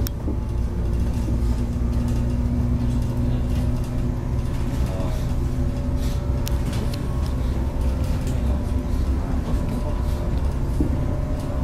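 A train's steady low running hum with several held machine tones and a few scattered clicks.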